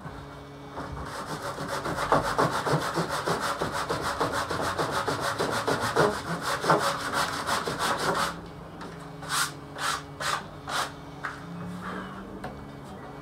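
A hand tool worked rapidly back and forth along the edge of a picture frame's backing board, trimming it to fit, with a fast even run of rasping strokes for about seven seconds. A few seconds later come four slower separate strokes, then it stops.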